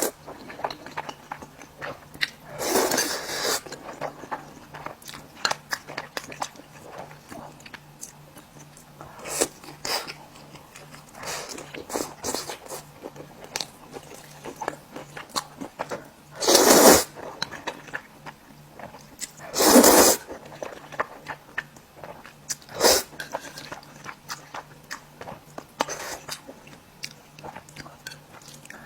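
Close-miked eating: a person chewing and biting with many small crunchy clicks, broken three times by louder noisy bursts about half a second long. A faint steady hum runs underneath.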